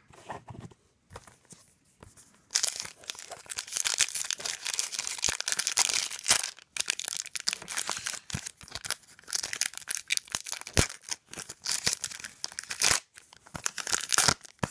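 A trading-card pack's wrapper being torn open and crinkled by hand, a dense, fast crackling that starts about two and a half seconds in.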